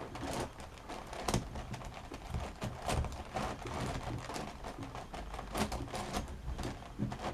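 Plastic Teraminx (7x7x7 megaminx) puzzle being turned by hand: its layers click and clack in quick, irregular turns.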